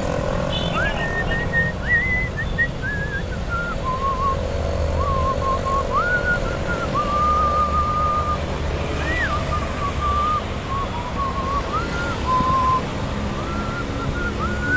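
A whistled tune: a single pure melody line of held notes joined by quick upward slides, over steady low road and traffic noise.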